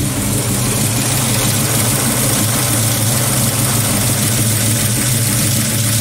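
351 Cleveland V8 idling with the twin AU Falcon electric thermo fans running, a steady rush of air over the engine. The fans have been switched on by the thermo controller as the engine reached about 90 degrees.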